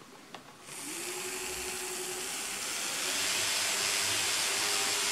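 Two small fischertechnik electric motors with propellers switched on after a small click: a motor whine that rises quickly, then holds a steady pitch, over a steady airy hiss.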